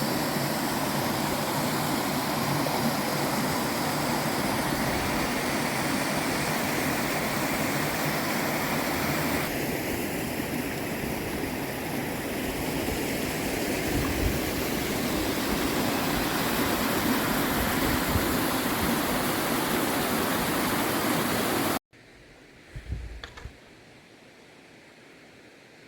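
Waterfall rushing, a steady, loud wash of falling water. About 22 seconds in it cuts off suddenly to a much quieter background, with a brief bump of sound a second later.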